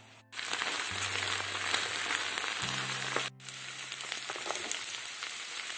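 Diced forest mushrooms (porcini and bay bolete) sizzling and crackling as they fry in oil in a non-stick frying pan. The sound cuts out briefly twice.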